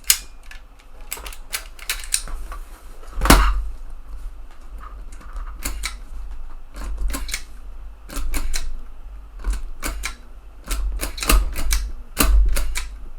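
Irregular run of sharp plastic-and-metal clicks and clacks from a TEAC FD-235F 3.5-inch floppy drive's eject mechanism being worked by hand, with one louder clack about three seconds in. The repairer takes the fault for a sticky eject mechanism.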